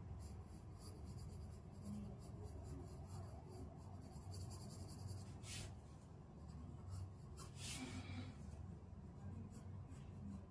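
Graphite pencil scratching faintly on drawing paper in quick, repeated shading strokes, with two louder rasps a little past the middle, over a low steady hum.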